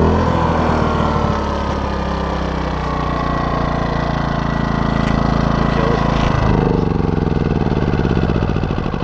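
DuroMax XP2000is inverter generator running, its engine speed shifting: the pitch falls over the first few seconds, changes again about six seconds in, and then rises toward the end.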